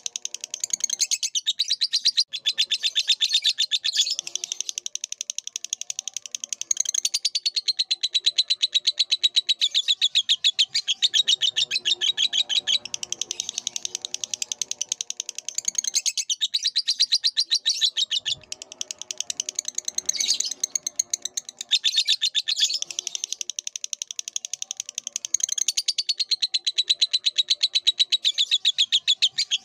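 Lovebird singing a long, unbroken chattering trill of rapid high chirps, many notes a second, dipping only briefly now and then.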